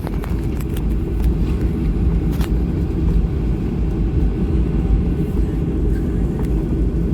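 Steady low rumble inside the passenger cabin of a Boeing 737-800 in flight or on the takeoff run: CFM56 jet engine and airflow noise, with a couple of faint clicks.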